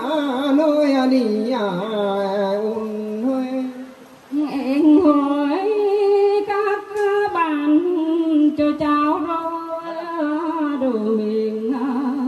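Traditional Mường folk singing through a microphone and loudspeaker, one unaccompanied voice at a time in long, wavering held notes. A man sings first; after a short pause about four seconds in, a woman takes up the song in a higher voice.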